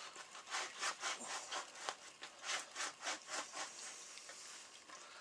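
A tanned coyote hide's leg being pulled back and forth over a wooden breaking beam, a rasping rub of skin and fur on wood at about two to three strokes a second that eases off about four seconds in. This is the hide being broken: its fibres are stretched to soften the skin as it dries.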